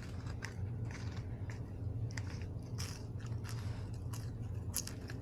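Close-up chewing and crunching of French fries: crisp bites and chews recur roughly every half second. A low steady hum runs underneath.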